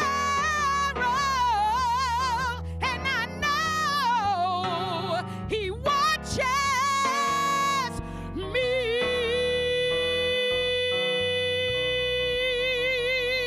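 A woman singing a melody with heavy vibrato over instrumental accompaniment. About eight and a half seconds in, she settles onto one long held note that wavers with vibrato.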